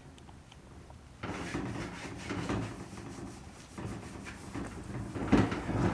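A rag rubbing over a new gas tank, wiping it down with paint thinner to take off the factory oil. The rubbing starts about a second in and goes on in uneven strokes.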